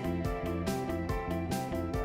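Background music: light guitar with a steady, regular beat.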